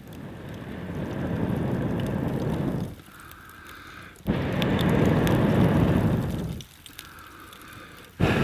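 A man blowing hard on smouldering campfire embers to rekindle them, three long rushing blows of breath with short inhales between, the third starting near the end. Faint crackles from the fire as the embers catch.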